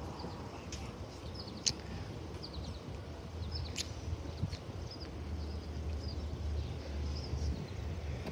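Low, steady rumble of a passenger train approaching from a distance, growing a little stronger partway through, with short high bird chirps and two sharp clicks.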